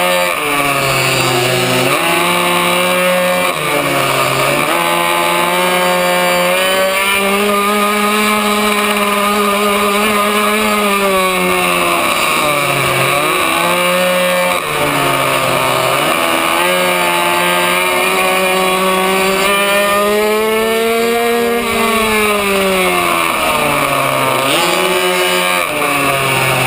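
A racing minibike's small two-stroke engine, heard from on board, running at high revs; its pitch drops sharply five or six times as the throttle is closed for corners and climbs straight back up as it opens again.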